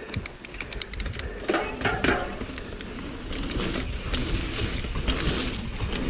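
Mountain bike rolling down a muddy trail: tyres on wet dirt under a steady low rumble, with many quick clicks and rattles from the bike over bumps.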